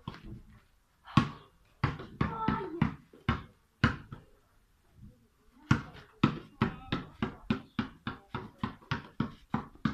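A basketball bouncing: a few separate bounces, then from about halfway a fast, steady dribble of about four bounces a second.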